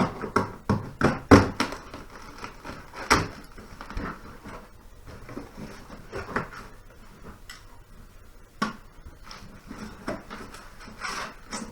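A shipping box being unpacked by hand: a quick run of knocks, rustles and clatters in the first two seconds, then scattered knocks and scrapes as the packing and parts are handled.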